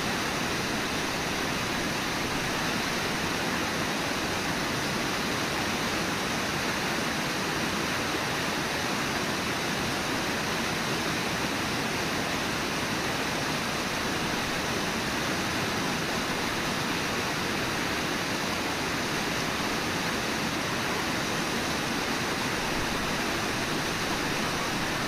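Steady, unbroken rush of the Brooks River's water flowing at Brooks Falls.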